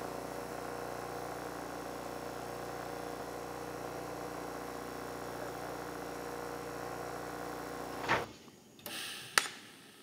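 Bench grinder fitted with a deburring wheel running free, a steady motor hum with no metal against the wheel. The hum cuts off abruptly about eight seconds in, followed by a short hiss and a sharp click near the end.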